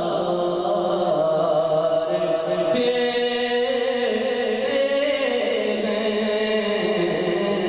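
A man singing a naat, an Urdu devotional poem, into a microphone in long, drawn-out melodic lines.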